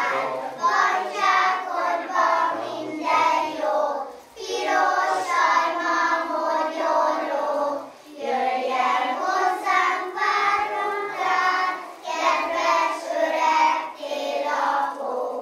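A group of young children singing a song together in chorus, in about four sung lines with brief pauses between them.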